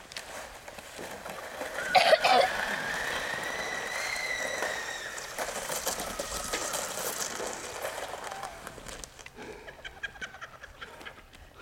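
A child's long, high-pitched squeal while riding a sled downhill. It starts with a loud burst about two seconds in, is held for several seconds rising slightly in pitch, then trails off into shorter cries.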